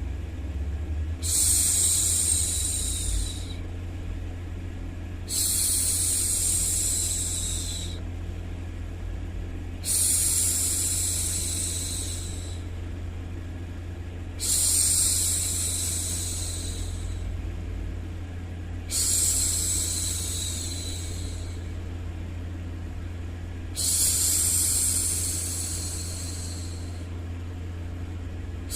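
A woman's voice shushing, a long 'shhh' repeated six times about every four and a half seconds, the hushing used to soothe a baby to sleep. Under it runs a steady low rumbling noise.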